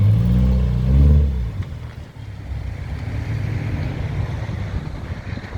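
Subaru Impreza 2.5RS's flat-four engine running: it revs up briefly about a second in, then drops back to a quieter, steady running.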